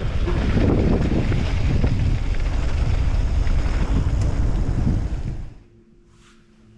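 Wind rushing over an action camera's microphone together with the rumble of a mountain bike rolling fast over a dirt trail. It cuts off suddenly about five and a half seconds in, leaving only a faint low hum.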